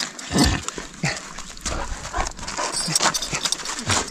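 A Kangal shepherd dog being handled up close as a cloth bundle is fastened to its collar: the dog's close breathing and movement with irregular rustling and clicking of cloth and collar, and a dull thump about half a second in.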